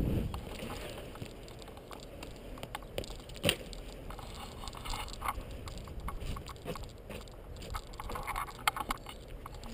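Mountainboard wheels rolling over concrete: a low rumble broken by scattered clicks and knocks, the sharpest about three and a half seconds in and another near the end.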